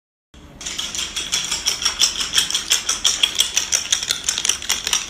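A small parrot's claws tapping quickly on a hard floor as it runs, a fast, even run of clicks, about seven a second, starting just after the beginning.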